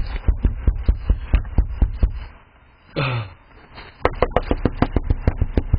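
Rapid knocking on a door, several knocks a second, in two long runs with a pause of about two seconds between them, picked up by a doorbell camera's microphone.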